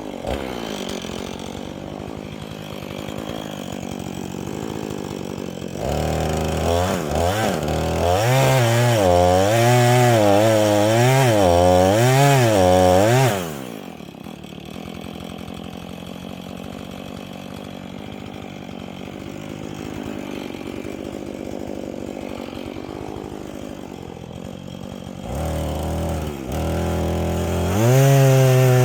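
Chainsaw idling, then revved up and run hard for about seven seconds with its pitch wavering up and down as it cuts into the tree, dropping back to idle, and revving up again near the end.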